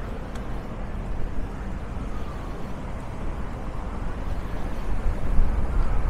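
City street traffic noise: a steady rumble of passing vehicles that grows louder near the end.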